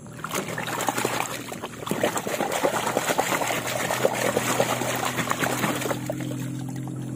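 Muddy water splashing and sloshing as a hand swishes a plastic toy truck through it to wash off the mud, stopping about six seconds in.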